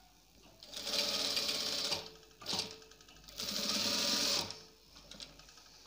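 Electric sewing machine stitching in two runs of about a second each, with a short burst between them.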